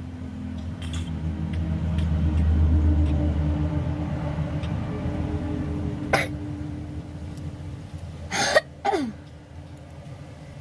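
Low rumble of road traffic, a heavy vehicle passing, that swells for the first few seconds and fades. Over it, a woman with a cold lets out a short sharp burst about six seconds in and two loud explosive coughs or sneezes in quick succession near the end, each falling in pitch.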